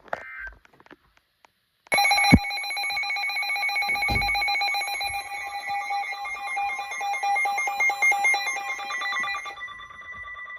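Emergency Alert System attention signal. A harsh, steady two-tone alarm starts suddenly about two seconds in and sounds for roughly seven to eight seconds, announcing the next weather warning. A fainter tone lingers near the end.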